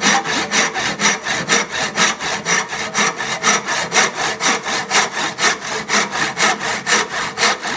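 Handsaw cutting through the protruding end of a wooden axe handle and its black walnut wedge, trimming them flush with the top of the axe head. Quick, even back-and-forth strokes, several a second.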